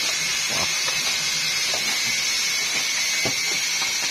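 Plastic stretch wrap being pulled off a generator housing: a few brief rustles over a steady high hiss with a thin whistle-like tone in it.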